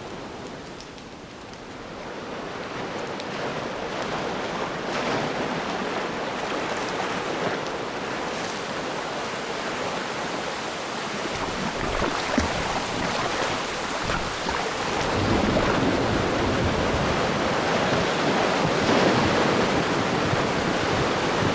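Ocean surf sound effect: waves washing and breaking in a steady rush that grows louder, with a deep rumble coming in about halfway through and building near the end.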